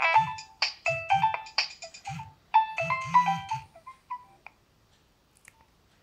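Nokia 3100 mobile phone playing a polyphonic ringtone through its small built-in speaker: a run of quick electronic notes and chords that stops about four and a half seconds in.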